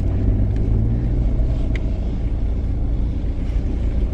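Steady low rumble of a car, the kind of engine and road noise heard inside a moving vehicle.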